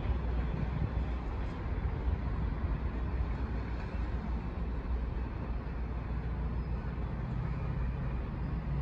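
Diesel locomotive's engine giving a steady low drone as it approaches slowly, hauling a train of coaches.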